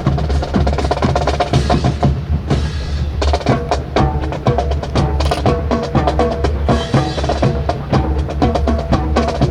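Marching music with drums, sustained band notes over a quick, steady rattle of sharp snare-like clicks.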